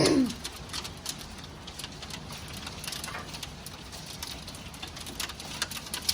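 Hailstones and rain falling, with many irregular sharp ticks of hail striking hard surfaces over a steady rain hiss. Right at the start a brief falling-pitched voice-like sound is the loudest thing.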